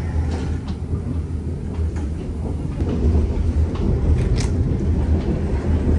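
ITX-Cheongchun express train running: a steady low rumble with faint scattered clicks and knocks.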